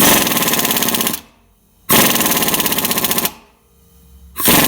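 Pneumatic impact wrench hammering in three bursts of just over a second each, the last starting near the end. It is driving the bolt of a homemade puller bracket to draw a seized crankshaft pulley off its shaft.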